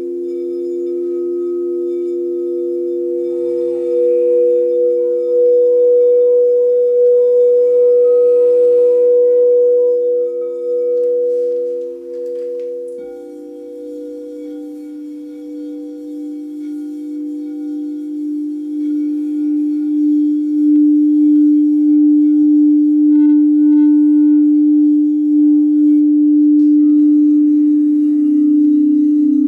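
Frosted quartz crystal singing bowls ringing in several steady, overlapping tones that pulse slowly. About halfway through, another bowl is struck with a mallet, and its lower tone swells up and becomes the loudest, played around the rim.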